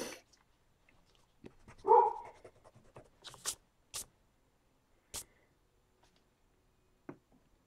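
Pencil and eraser work on sketchbook paper: a hand brushing across the page and a few short scratchy rubbing strokes. About two seconds in there is a single short, loud, voice-like sound.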